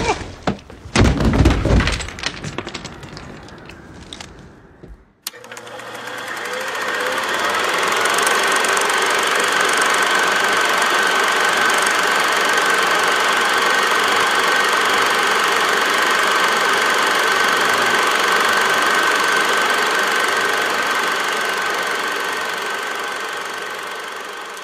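A few loud sharp bangs and knocks from a film fight scene that die away. Then, from about five seconds in, a film projector running: a steady mechanical whir with a high whine and a low hum, fading out near the end.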